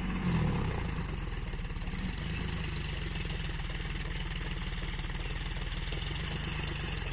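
Tractor diesel engine idling steadily, a low, even rumble.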